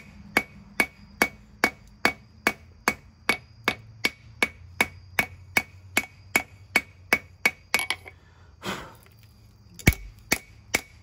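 Hand hammer drawing out hot leaf-spring steel on an anvil, about two and a half even blows a second, each one ringing the anvil. The blows stop about eight seconds in, with a short rasp in the gap, then start again with a heavier thud near the end.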